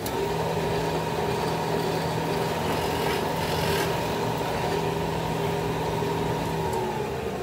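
Large floor-standing drill press running with a steady motor hum as its bit bores a hole in plywood. Near the end the pitch starts to drop as the machine winds down.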